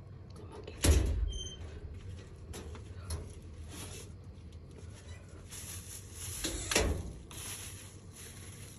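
Household movement noises in a small kitchen: a sharp knock about a second in, another a little before the end, and rustling and shuffling between them.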